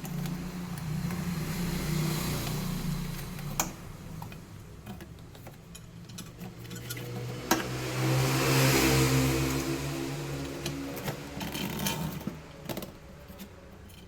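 Small electric aquarium water pump humming, with a rush of water hiss that swells in the middle and fades, and a few sharp clicks from handling the fittings.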